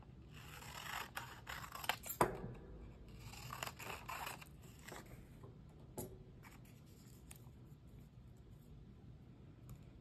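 Large shears snipping through a sheet of patterned paper in two runs of cuts, with sharp blade clicks, during the first half. A single click about six seconds in, then faint paper rustling.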